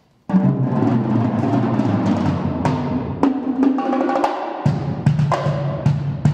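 Drum set played by two drummers at once with sticks: fast, dense strokes across the toms and drums, starting suddenly about a quarter second in. For about a second in the middle the deepest drums drop out and only the higher drums sound, then the low drums come back in.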